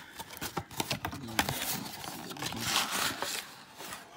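Cardboard Topps mega box being opened and handled by hand: an irregular run of scrapes, taps and rustles as the flaps and inner tray are pulled.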